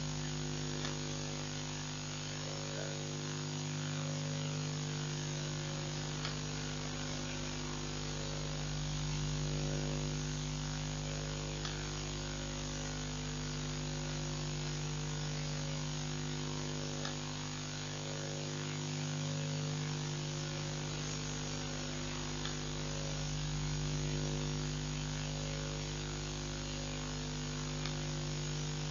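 A steady electrical hum with hiss that swells and fades slowly, with a faint tick about every five seconds.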